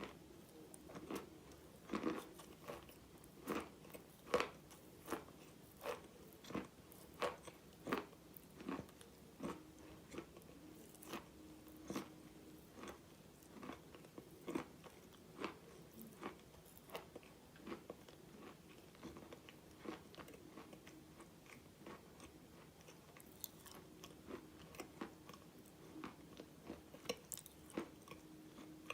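A person biting and chewing a crunchy mouthful of wet chalk-type mineral close to the microphone: irregular sharp crunches, one or two a second, thinning out in the middle and picking up again near the end.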